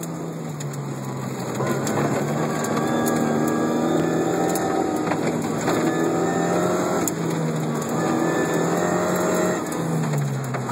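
MGB rally car's engine running hard, heard from inside the cabin, its note rising and falling with throttle and gear changes and dropping briefly near the end. Sharp ticks and rattles come through over the engine, typical of loose gravel under the car.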